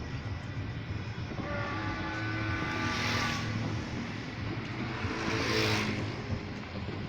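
New Year's noisemaking: horns sounding in two spells of overlapping steady notes, the second spell lower, over a hiss of crowd and street noise.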